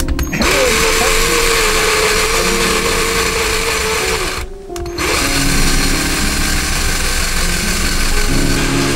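A Ryobi drill boring a twist bit through a thin metal plate backed by a wooden block, its motor whining steadily. The drill stops briefly about four and a half seconds in, then starts again, with background music underneath.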